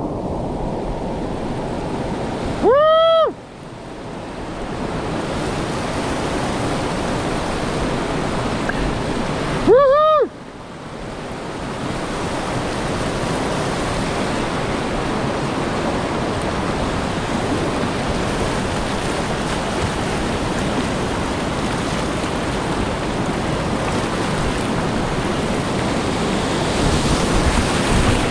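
Whitewater rapid rushing loudly around a kayak. Twice, about seven seconds apart, a short high-pitched call cuts through, rising and falling in pitch.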